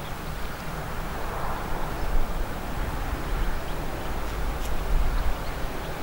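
Outdoor ambience: wind gusting over the microphone with an uneven low rumble and a rustle of dry shrubs, with a few faint, short bird chirps.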